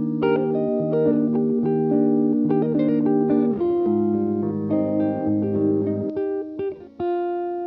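Background music: a plucked guitar melody over bass notes, ending on a single chord held to let ring near the end.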